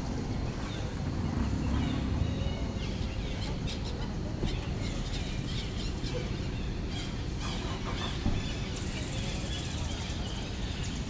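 Outdoor ambience: a steady low rumble with scattered short, high chirps and clicks through the middle, and a faint steady high hiss that sets in about three-quarters of the way through.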